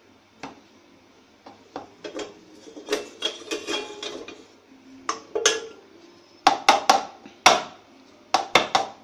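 Wooden spatula scraping and knocking against a non-stick kadhai while stirring thickened milk for kalakand off the flame, letting it cool a little before ghee is mixed in. Irregular clatter, with a run of sharper knocks in the second half.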